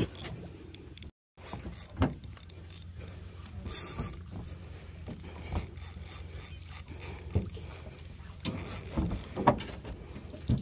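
Daiwa spinning reel being cranked on a retrieve: a mechanical gear whir with scattered clicks and knocks, over a steady low rumble.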